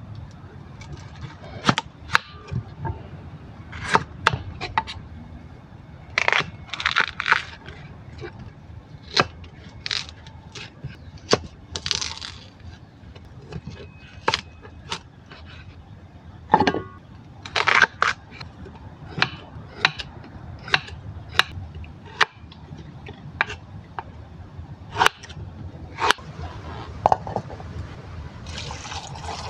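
Hand-preparation of a freshly dug bamboo shoot: irregular sharp knife knocks and clicks on a cutting board, with a few short scraping, rustling bursts as the husk is cut and peeled.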